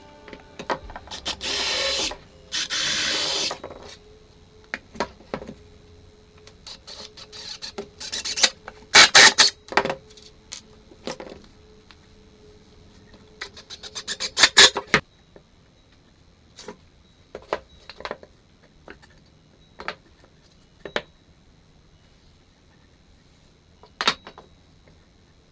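Hand tool work on wood: two rasping strokes about two seconds in, then bursts of quick taps and knocks, thinning to scattered single taps.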